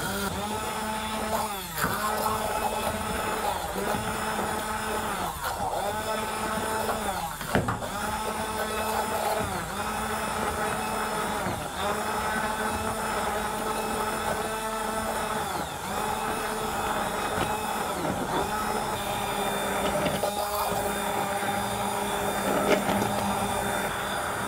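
Hand-held immersion blender running in a pot of soup, puréeing chunks of cooked butternut squash. Its steady motor whine dips in pitch every couple of seconds and comes back up.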